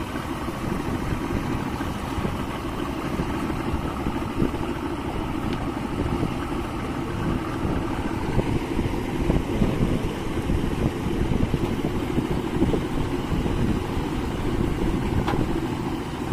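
Yamaha 200 hp two-stroke outboard motor running steadily, getting somewhat louder from about halfway in.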